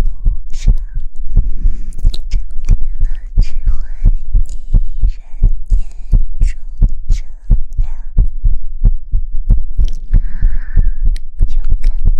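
Heartbeat-style soothing sound: regular soft thumps, about three a second, over a constant deep hum, with faint whispery hiss above.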